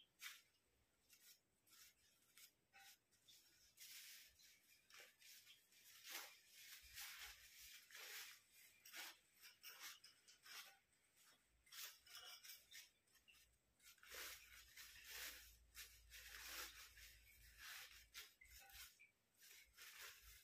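Faint, irregular rustling and crinkling of thin white paper being handled, as accordion-folded layers are pulled apart and fluffed out.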